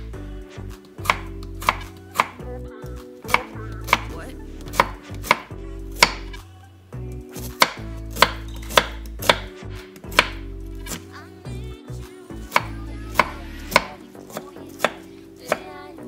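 A tiny knife chopping onion on a miniature wooden cutting board: sharp, irregular knocks of the blade on the board, about one or two a second, with a short pause about 11 seconds in.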